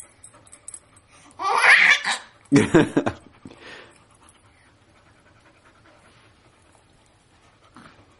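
Laughter in two short loud bursts, about a second and a half in and again near three seconds, then quiet.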